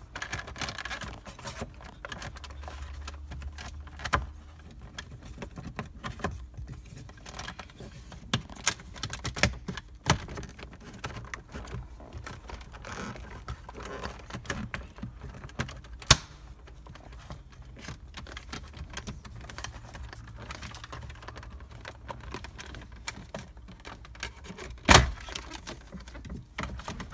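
Plastic interior trim being pried off with a plastic pry tool: scattered clicks, taps and scrapes of the tool and the panel edges. Two sharp snaps, one about halfway through and one near the end, as the trim's retaining clips pop loose.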